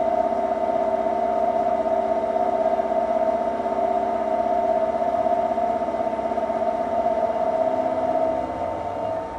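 Milling machine taking a 1 mm-deep facing cut across an aluminium plate: a steady running tone that weakens about eight seconds in.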